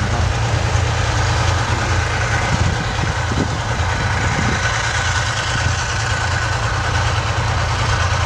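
Armoured military vehicle's diesel engine running steadily, a continuous low drone with a haze of noise over it.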